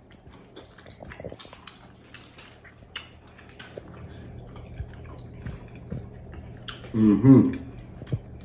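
Close-up mouth sounds of people chewing and eating oxtail and rasta pasta, with many small wet clicks and light utensil taps. A short voiced sound, like an appreciative hum, comes about seven seconds in.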